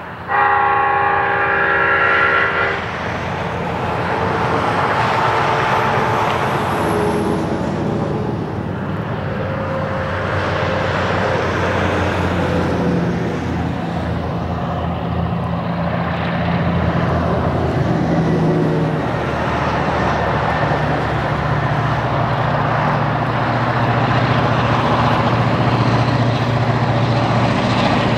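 A diesel locomotive air horn sounds one long blast at the start. After it, the engines of a train of four vintage Clyde-built diesel locomotives, led by S class S317, run steadily and grow louder as they approach hauling a long train of coal wagons.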